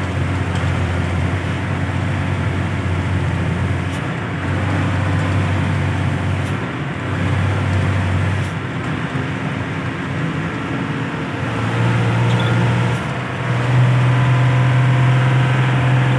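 Motor vehicle engine running under way, with a steady haze of road and wind noise. The engine hum dips briefly a few times, then steps up in pitch and gets louder about twelve seconds in and again near the end.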